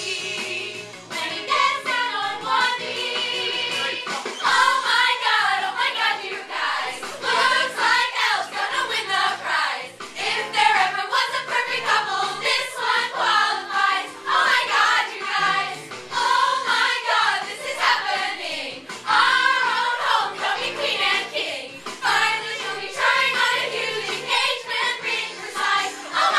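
A group of teenage girls singing together over instrumental accompaniment.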